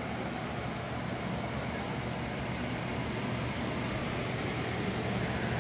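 Steady whooshing hum of electric fans running, growing a little louder near the end.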